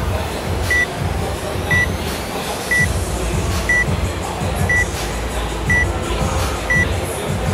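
Workout timer beeping as it counts down, one short high beep each second. Gym music with a steady beat plays underneath.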